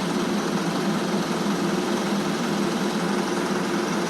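Engine of construction machinery running steadily at a constant speed, an even hum with no change in pitch.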